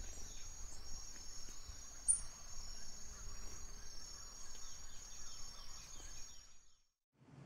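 Faint outdoor ambience: insects keep up a steady high drone while small birds chirp now and then, with one sharper chirp about two seconds in. The sound fades out shortly before the end.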